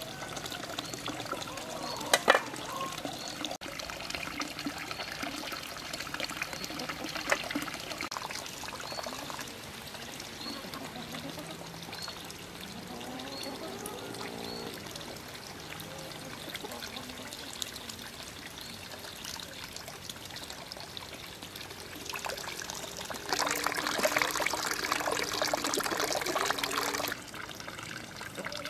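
Water pouring from a pipe spout into a concrete trough, a steady trickle and splash, as a whole fish is rinsed under the stream. The splashing grows louder for a few seconds near the end. A sharp knock sounds about two seconds in.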